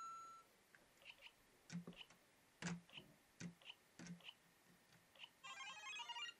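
Lego Mario interactive figure giving a short electronic beep, then faint plastic clacks and knocks as the figure is hopped and set down on Lego bricks. Near the end its speaker plays a quick electronic jingle.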